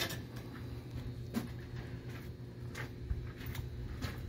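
An engine running steadily in the background, making a low, even hum, with a few light clicks and taps over it.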